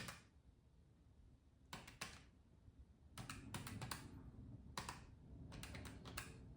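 Faint clicks of calculator keys being pressed, in short runs of taps with pauses between them, as grocery expenses are added up.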